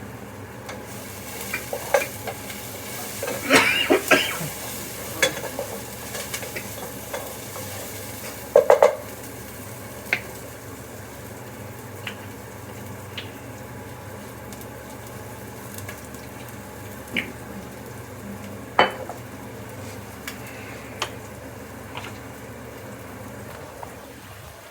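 Food sizzling in a frying pan, with a utensil stirring and clinking against the pan now and then; the loudest clinks come in a cluster about four seconds in, a sharp pair about eight and a half seconds in, and one more near nineteen seconds.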